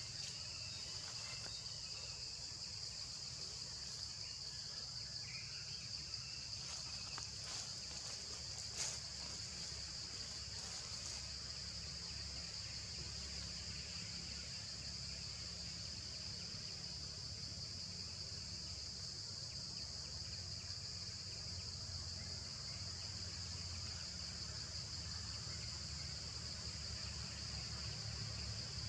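Steady, high-pitched drone of an insect chorus that does not let up, with a few faint clicks about a third of the way in.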